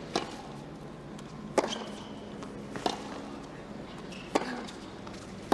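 Tennis ball struck by rackets in a rally: a serve, then three more sharp hits, about one and a half seconds apart, over the hush of a stadium crowd.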